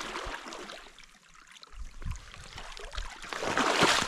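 Water splashing and sloshing around a person's steps as he wades a shallow, ice-edged river. The sound dips briefly about a second in and is loudest near the end.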